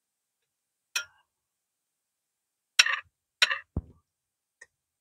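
A few sharp, separate clicks and clinks of small hard objects, with a short low knock among them: one about a second in, a pair near three seconds followed by the knock, and two more close together at the end.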